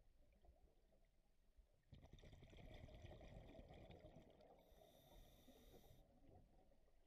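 Faint underwater bubbling and rumble from a scuba diver's regulator exhaust bubbles, starting about two seconds in, with a thin hiss for a moment near the middle.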